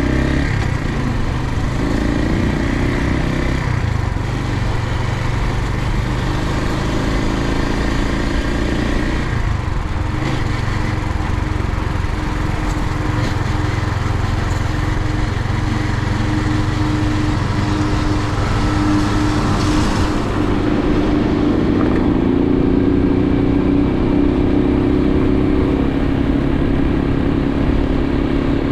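Suzuki TU250X's single-cylinder engine running on the road, its pitch shifting with the throttle and climbing as it accelerates near the end, over a steady rushing noise.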